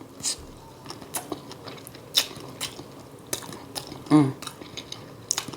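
Close-up eating: chewing with wet mouth smacks, many short clicks spread irregularly, and a brief 'mm' hum about four seconds in.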